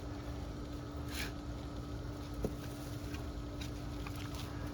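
Digging in loose garden soil: a few short scrapes and rustles of a digging tool and dirt, over a steady low hum and rumble.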